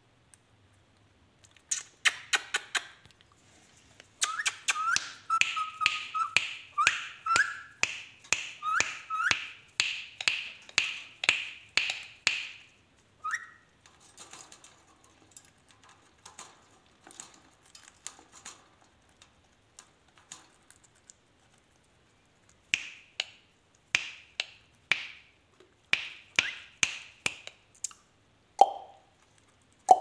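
Indian ringneck parakeet giving short, sharp chirps in quick runs of about two a second, with a quieter gap in the middle and a lower, longer call near the end.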